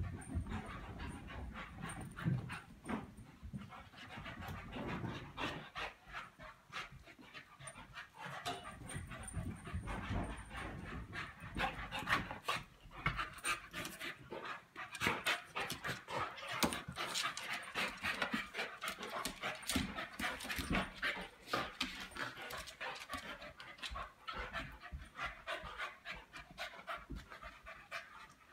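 Two dogs play-fighting on carpet: quick, uneven panting and scuffling.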